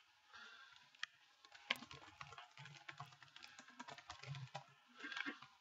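Faint typing on a laptop keyboard: a run of short, irregular key clicks.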